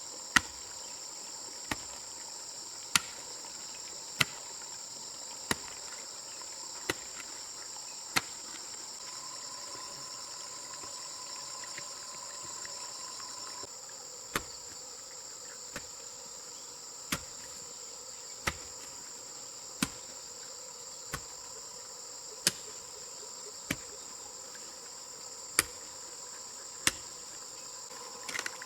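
Crickets chirring steadily, with a run of sharp, evenly spaced knocks, about one every second and a third, that stop for about six seconds near the middle.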